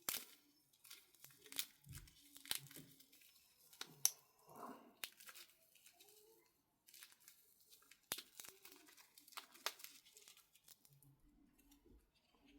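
Packaging around a small electronic component being opened and handled: faint crinkling and tearing, with scattered sharp clicks.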